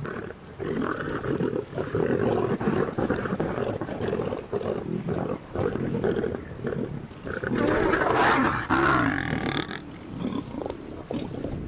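Lions growling in repeated bouts, loudest about eight seconds in.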